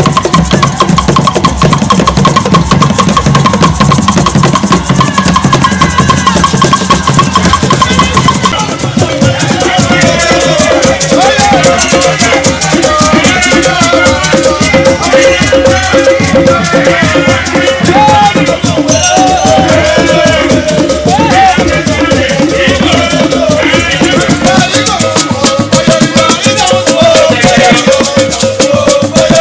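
Percussion music with drums and shaken rattles keeping a steady beat; about eight seconds in, singing voices come in over the drumming and carry on.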